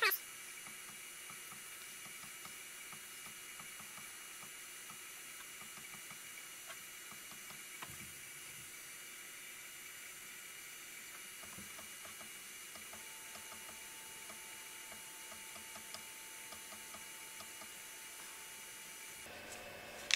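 HICTOP AL13-310 3D printer idling: a faint steady hiss with a thin high whine from its fans and electronics. A short stepper-motor whine slides in pitch at the very start as the nozzle is stepped down, and there are a couple of faint ticks.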